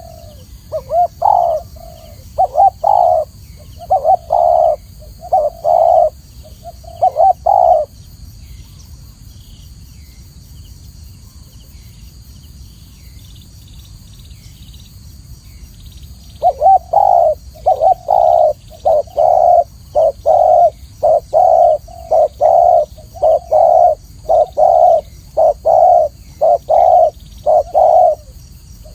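Spotted dove cooing in repeated phrases of short, low notes. A run of phrases lasts for the first eight seconds or so, then stops for about eight seconds, and a longer unbroken series of coos starts about halfway through and keeps going.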